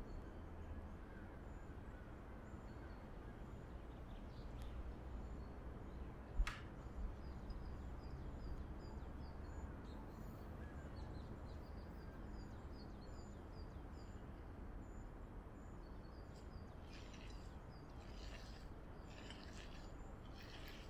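Faint, high bird chirps over a steady quiet hiss, with one sharp tap about six seconds in. Near the end comes a run of short scrapes as a fork stirs flour into wet dough in a glass bowl.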